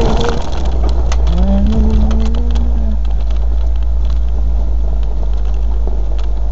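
Land Rover four-wheel drive running on a 4WD track: a heavy, steady low rumble with scattered knocks and rattles in the first few seconds.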